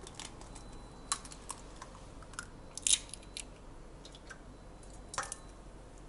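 Eggshells cracking and clicking against each other and a stainless steel bowl as eggs are separated, yolks from whites: a scattered series of short, sharp clicks and taps, the loudest pair a little before the middle.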